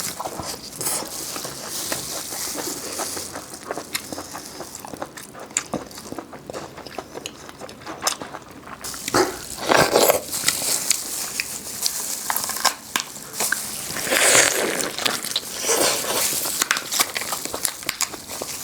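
Close-miked eating sounds: biting and chewing with many small crackles, and two louder crunching sounds about halfway and about three-quarters through.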